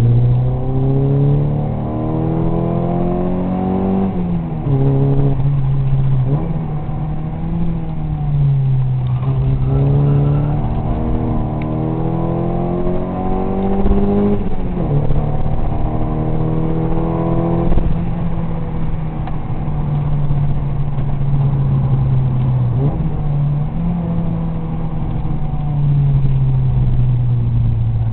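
Rover 220 GSi engine heard from inside the cabin, pulling hard: its pitch climbs and drops sharply at each of about four gear changes, then it runs steadier at cruise with small dips.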